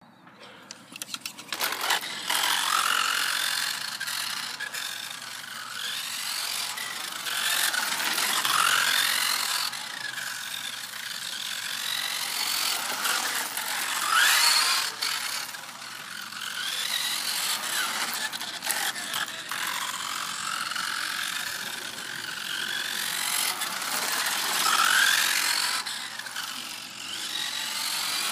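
Kyosho Maxxum FF radio-controlled buggy driving on asphalt. Its motor and drivetrain gears whine, rising and falling in pitch again and again as it speeds up and slows down, over a gritty rattle of gears and tyres. It begins about a second in.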